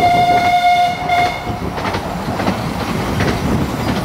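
Steam locomotive's whistle held on one steady note, stopping about a second in, over the running noise of the train on the rails with repeated wheel clicks.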